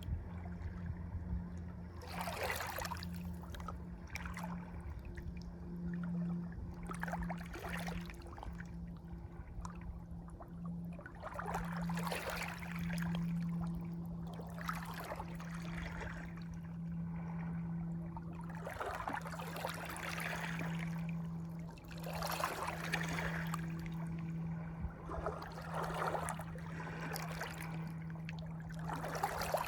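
Water splashing and gurgling in irregular surges every second or two, over a steady low hum.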